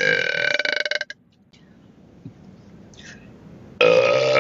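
A person belching loudly twice: a long, drawn-out burp that stops about a second in, then another long one starting near the end.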